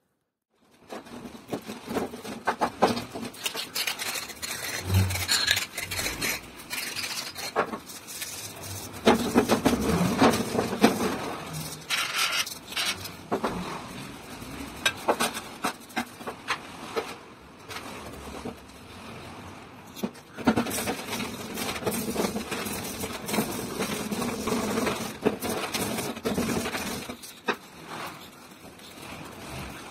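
A rusty iron hammer head being scraped and rubbed clean by hand, with irregular scraping and rubbing and frequent knocks of metal on a hard surface.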